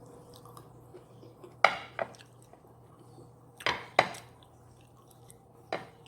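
Cutlery clinking against a plate while eating: five sharp clinks, two close pairs and then a single one.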